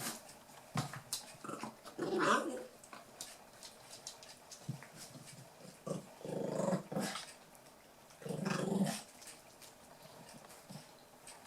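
Eight-week-old toy poodle puppies growling in play, three louder bouts of growling with small clicks and taps in between.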